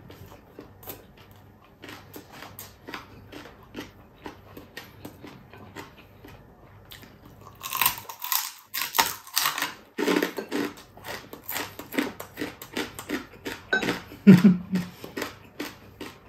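Close-up crunching and chewing of crispy deep-fried boneless chicken-feet chicharon, a run of short crunches. They are faint at first, then louder and denser from about eight seconds in, when a fresh piece is bitten.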